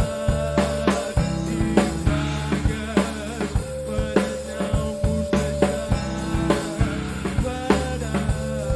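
Instrumental rock passage by a band: a drum kit keeps a steady beat under bass guitar and held keyboard or guitar notes, with no singing.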